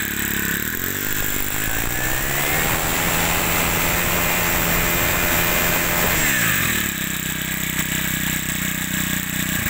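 Makita MEM427T four-stroke brushcutter engine running: idling, revved up about a second in, held at high speed for a few seconds, then let back down to idle near the end.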